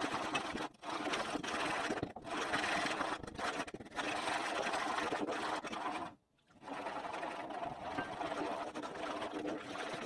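Wooden spoon stirring a thin custard mixture fast in a nonstick saucepan: a rapid, steady scraping and sloshing against the pan, breaking off briefly a little past halfway.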